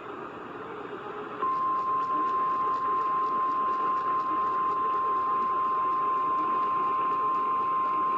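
NOAA Weather Radio alert over received-radio hiss. About a second and a half in, the 1050 Hz warning alarm tone starts abruptly and holds as one steady, single-pitched tone. It signals that a warning-level alert follows, here a severe thunderstorm warning.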